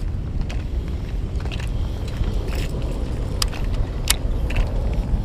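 A steady low outdoor rumble of wind on the microphone and road traffic, with a few sharp light clicks of fishing tackle being handled, two of them about three and four seconds in.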